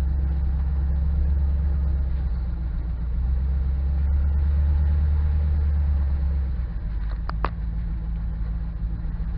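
A 5.3-litre LS V8 in a 1972 Chevy truck running under way with a steady low drone, which eases off about two-thirds of the way through.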